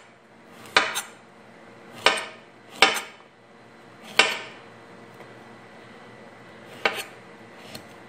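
Metal utensils clinking against dishes in a kitchen: six sharp knocks at irregular intervals, each ringing briefly, the last one fainter.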